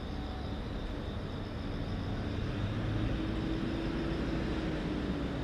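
Low, steady rumble of distant road traffic, with a faint engine hum that rises slightly and then falls in pitch through the second half.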